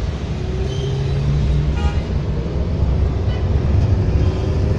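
Steady low rumble of engine and road noise from inside a moving vehicle on a highway. About two seconds in comes a brief high horn toot.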